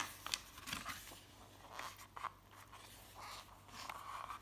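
Paper rustling and soft scraping as a paperback book's page is turned, with a few brief swishes, then a hand sliding over the paper to flatten the new page near the end.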